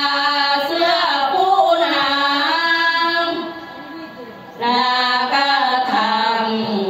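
A group of women chanting sorapanya, Thai Buddhist devotional verse, in long, drawn-out sung lines. The singing drops away a little past halfway, then comes back strongly.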